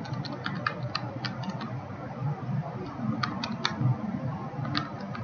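Keyboard keys being tapped in short runs: a quick string of clicks in the first second and a half, a few more a little past three seconds, and one or two near the end, over faint room noise.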